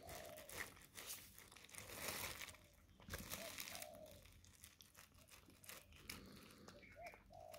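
Faint crinkling of a thin plastic bag with small clicks, as a cat eats wet food off it.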